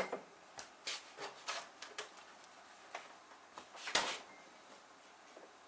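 Light clicks and knocks of kitchenware being handled, with a louder clatter about four seconds in.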